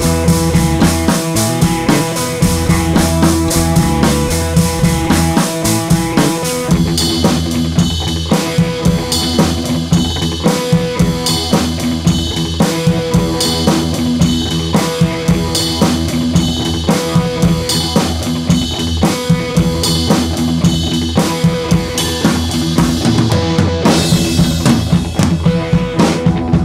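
Instrumental background music with a steady drum-kit beat.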